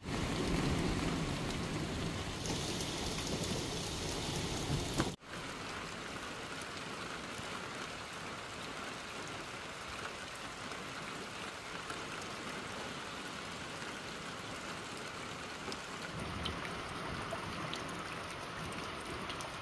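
Steady spring rain falling, an even hiss. For the first five seconds it is louder with a low rumble, then it cuts off suddenly and goes on as a quieter, steady hiss.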